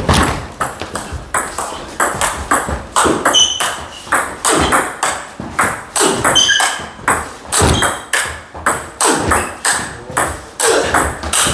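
Table tennis rally: the plastic ball clicking sharply off the players' bats and the table, in a long quick run of about two to three hits a second.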